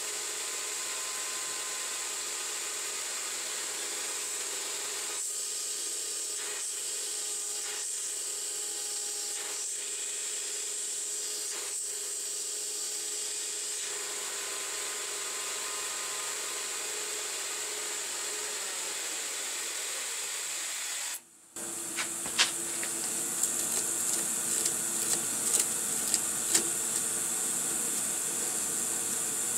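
Benchtop metal lathe running with a steady hiss from a mist-coolant sprayer, while a file rubs against the spinning part. About 21 s in the sound cuts. After that the hiss carries on and sharp metal clicks and clinks come from handling at the stopped chuck.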